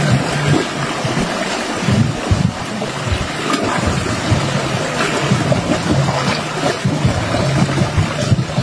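Shallow sea water washing and splashing around a person wading, a steady rush of surf noise.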